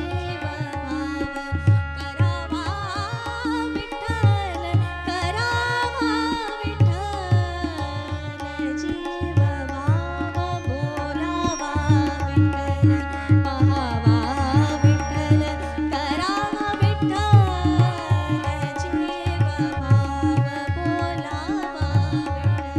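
A woman sings a devotional Marathi abhang in sliding, ornamented lines, accompanied by tabla and harmonium. The tabla keeps a steady rhythmic pattern while the harmonium holds sustained notes underneath.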